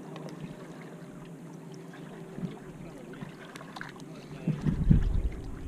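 A steady low hum under open-air noise, with a few faint clicks, and a short low rumble of wind buffeting the camera microphone about four and a half seconds in.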